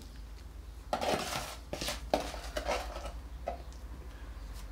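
Small trowel scraping and clinking against a hand-held container as wet sand-and-cement mortar is scooped out and thrown into a ceramic pot: a series of short scrapes and clinks starting about a second in.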